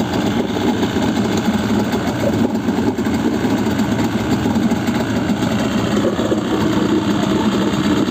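Mercury 25 hp outboard motor running steadily, its propeller churning the water in a bucket that holds the lower unit.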